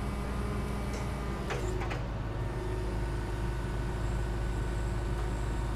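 Heavy vehicle engine running steadily, with a couple of sharp knocks about one and a half to two seconds in.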